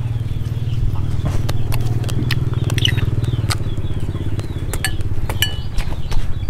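A small engine running steadily in the background, low-pitched with a fast even pulse, with scattered sharp clicks of a spoon against a ceramic bowl and eating sounds on top.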